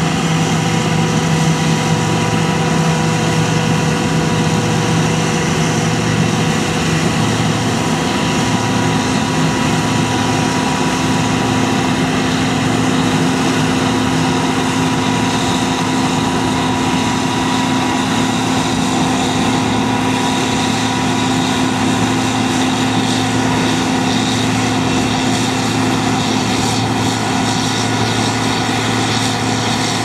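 Heavy diesel farm machinery running steadily: a loud engine hum with fainter steady higher tones. About seven seconds in, the lowest hum steps up in pitch.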